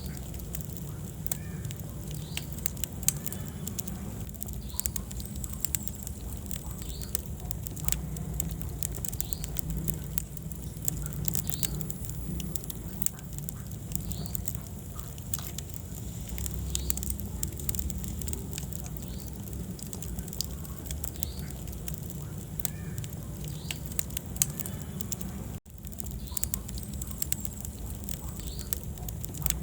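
Wood fire burning in a fireplace: a steady low rumble of flames with frequent, irregular sharp crackles and pops. The sound cuts out for an instant about 25 seconds in.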